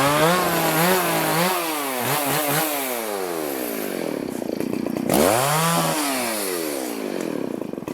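Two-stroke chainsaw running at high revs, its pitch sinking slowly over a few seconds as it slows down, then revved up again about five seconds in and easing off.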